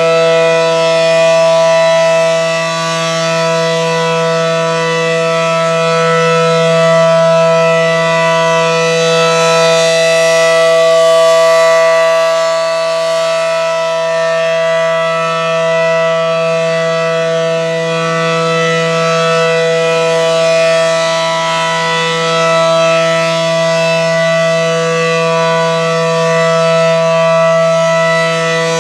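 ACA Allertor 125 electronic outdoor warning siren sounding the steady alert signal of a siren test: a loud, unbroken, multi-note tone with gentle swells in loudness.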